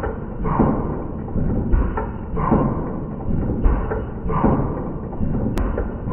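Heavy-duty industrial leather sewing machine stitching slowly through thick leather, a heavy thud with each stitch cycle about once a second.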